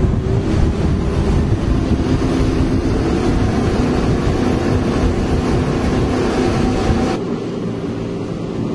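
Outboard engines of a rigid-hulled inflatable boat running under way, a steady engine note over a rush of wind and water. About seven seconds in the sound changes abruptly to a quieter, duller engine noise.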